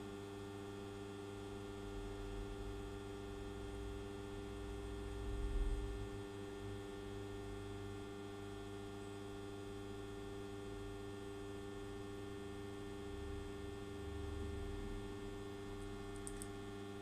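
Isolation transformer humming steadily at mains frequency, a hum with a buzzy edge. A low rumble swells briefly about five seconds in and again around fourteen seconds.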